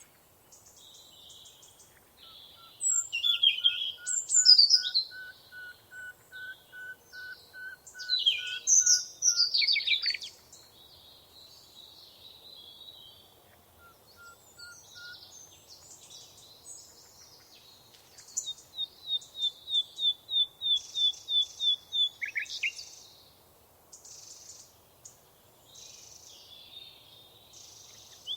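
Several songbirds singing in turn and overlapping. One repeats a clear whistled note about twice a second, others give loud descending trills, and later a quick run of high repeated notes lasts a few seconds.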